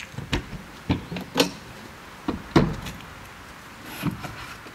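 A run of about six sharp knocks and clunks, the loudest some two and a half seconds in: a campervan's outside storage locker being opened and a plastic garden-hose reel handled and pulled out of it.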